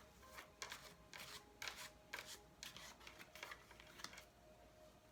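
Faint, irregular flicks and rustles of tarot cards being handled, as cards are sorted through and drawn from a deck by hand.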